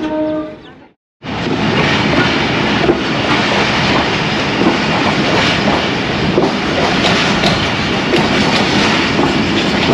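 After a brief cut to silence about a second in, a passenger train running on the rails: a steady loud rumble and clatter of the wheels and coaches, with occasional sharp clicks.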